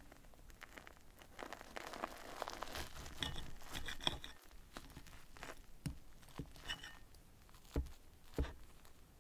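Metal knife and wooden fork cutting through a fluffy souffle omelette on a plate: crackly tearing and scraping for a couple of seconds, with brief squeaks of the knife against the plate, then two sharp knocks of cutlery on the plate near the end.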